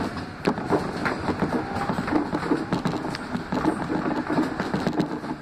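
R160B Siemens subway car running along the track, heard from inside the lead car: a steady rolling rumble with irregular clicks and knocks from the wheels over the rails.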